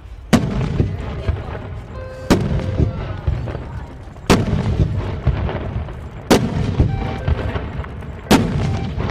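Daytime smoke firework shells bursting in the air one after another: five sharp bangs about two seconds apart, each followed by a low rumble.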